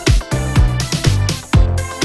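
Background music: an electronic dance track with a steady beat, about two beats a second.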